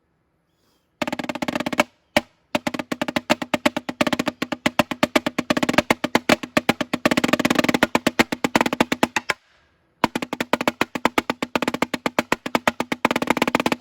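Snare drum played in fast runs of rapid strokes, starting about a second in, with brief breaks about two seconds in and near the middle.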